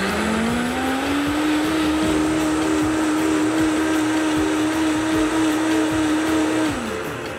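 High-powered countertop blender puréeing tomato soup until smooth: the motor's whine rises in pitch over the first second as it speeds up, holds steady, then drops away near the end as it winds down.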